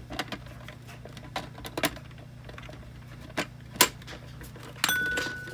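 Hard plastic shell parts of a Droid Depot R5 droid clicking and knocking together as they are handled and fitted, in a scattered series of sharp clicks. Near the end a steady high tone comes in.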